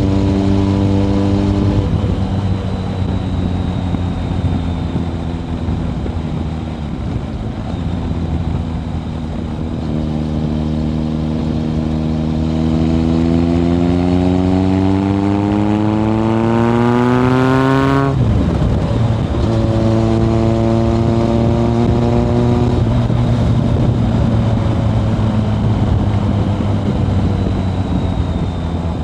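Kawasaki ZRX1100's inline-four through a Yoshimura exhaust, heard from the rider's seat. It runs steadily, then about a third of the way in pulls hard with a long rising pitch, drops sharply a little past halfway, and settles to steady running at lower revs.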